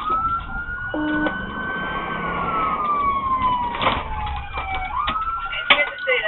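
Police siren wailing: its pitch rises quickly, holds, slides slowly down, then climbs again near the end. A sharp knock sounds about four seconds in.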